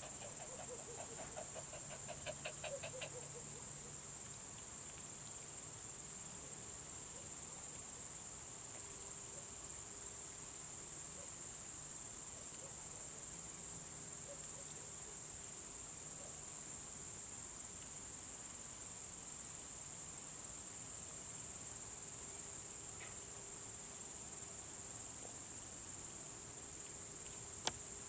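Steady high-pitched chirring of crickets. In the first three seconds a faint rapid pulsing sound falls in pitch, and a single short click comes near the end.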